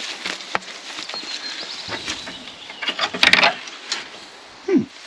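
Scattered small knocks, clicks and rustles, with a louder rattling scrape about three seconds in.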